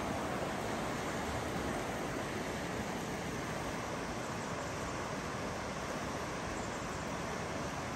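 River water rushing steadily over shallow rocky riffles, an even rushing sound.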